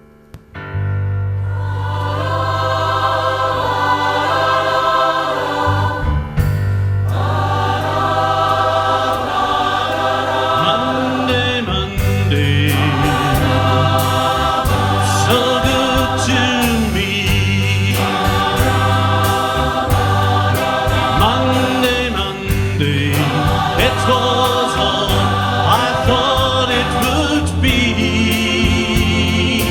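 A massed choir of some 400 voices singing a pop medley in close harmony over a band with a steady bass line, coming in about half a second in. A ticking drum beat joins about twelve seconds in.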